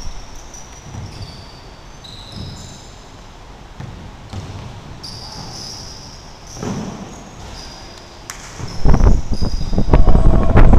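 Basketball game on a hardwood gym floor: ball bounces and short high sneaker squeaks echo in the hall. From about nine seconds in, loud low rumbling buffeting on the microphone covers them.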